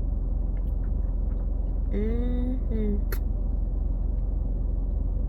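Steady low rumble of a car cabin with the engine idling. About two seconds in comes a brief hum lasting about a second, then a single click.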